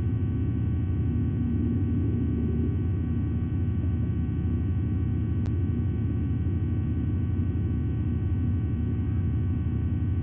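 Steady low rumble with faint electrical hum tones, the constant background noise picked up by a nest-camera microphone. There is one faint click about five and a half seconds in.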